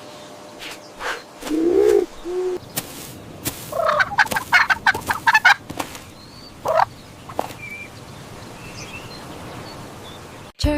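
Farm poultry calling: several separate calls, with a rapid rattling run of notes about four seconds in.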